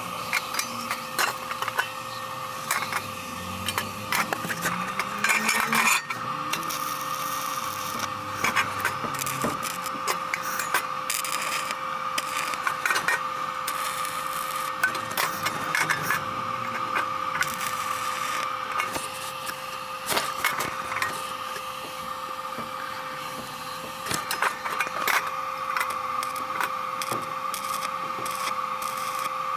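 Stick welding arc from a SUZUKID Sticky welder: continuous irregular crackling and spitting over a steady hum.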